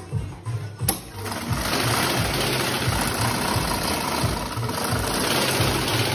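Motor-driven Swaran industrial sewing machine stitching car-mat leather. It starts about a second in, runs steadily and stops near the end.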